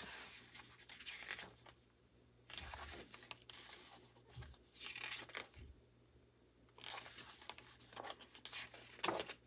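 Glossy pages of a hardcover album photobook being turned by hand, each turn a short paper rustle and swish. There are several of them, separated by quiet gaps.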